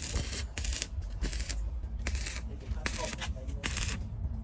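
Repeated scraping strokes, irregular at about two a second, each lasting a fraction of a second, over a low rumble.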